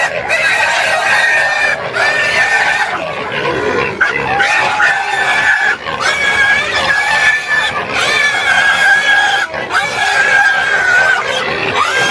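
A feral hog squealing in distress as it is seized and held by an American alligator in the water: a string of long, high squeals, each held a second or more, one after another with only brief breaks.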